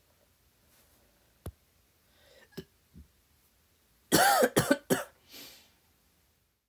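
A man coughs in a quick burst of several coughs about four seconds in, following a single faint click and some small mouth noises.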